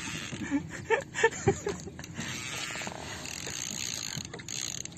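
Fishing reel whirring and clicking under heavy load while a big fish is fought on a bent rod, with a few sharp clicks about a second in.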